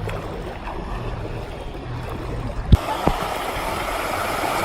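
A sharp knock, then a steady rush of water that comes in right after it and slowly grows louder.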